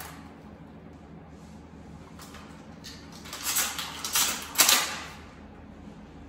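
Maruzen airsoft shotgun being handled: three or four short scraping clacks of plastic and metal in quick succession from about three and a half seconds in, the last one the loudest.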